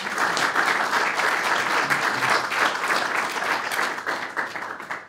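Audience applauding, many hands clapping steadily, the applause tailing off near the end.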